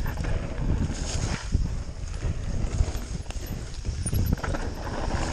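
Mountain bike rolling down a rocky dirt trail: tyres running over stones and roots while the bike rattles and knocks in a dense, irregular run of thumps.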